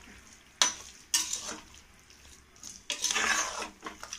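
Metal spoon stirring a thick, wet mix of cooked vegetables, coconut paste and curd in an aluminium pressure cooker. There is a sharp clink of metal on the pot about half a second in, then two spells of wet scraping stirs, the second near three seconds in.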